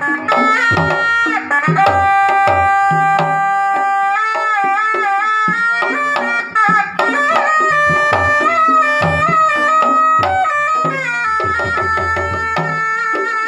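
Sundanese kendang pencak music in the paleredan drum pattern: two-headed kendang hand drums beat a running rhythm of low and high strokes under a high melody line that wavers and bends in pitch.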